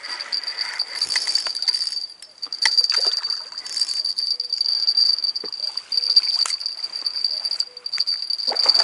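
A hooked carp splashing and thrashing at the surface among the reeds as it is played in, with scattered sharp clicks. A steady high-pitched whine runs underneath throughout.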